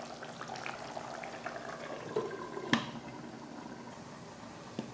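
Egg curry in green masala gravy simmering in a pan, a steady bubbling. About halfway through comes a single sharp clink as a glass lid goes on the pan, and after it the bubbling is quieter.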